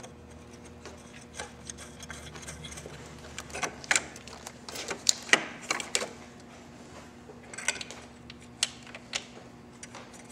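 Irregular metal clicks and taps of screws and a wrench as an amplifier is bolted into its mounting bracket, with a cluster of sharper clicks about four to six seconds in.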